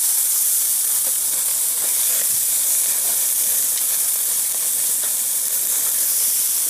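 Bone-in ribeye steaks sizzling on a hot grill grate: a steady hiss with a few faint pops.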